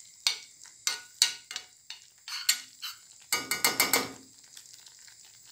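Metal spoon scraping and clinking against a stainless steel pan while stirring a thick tomato sauce, with a quick run of ringing metal clinks a little past three seconds in. After that only the sauce's faint simmer is left.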